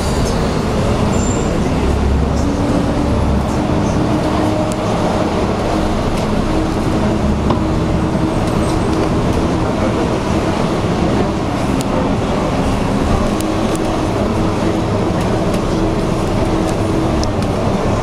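Double-decker bus engine running with a steady droning hum over traffic noise.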